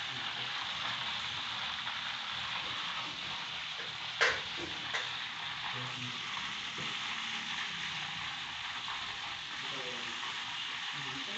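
Food frying in hot oil: a steady sizzle, with one sharp knock about four seconds in.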